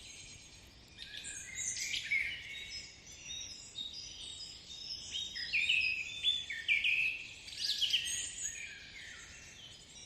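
Dense chorus of many birds calling at once: overlapping short chirps and quick rising and falling whistles, busiest past the middle.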